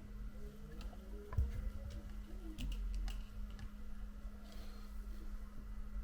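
Faint, scattered small clicks and taps from handling an iPhone 7 on a repair bench, over a steady low hum.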